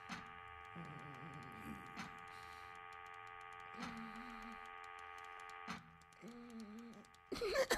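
Film sound design of a strange machine: a steady hum of several held tones, with a sharp tick about every two seconds, each followed by a low wavering creak. A louder sound cuts in just before the end.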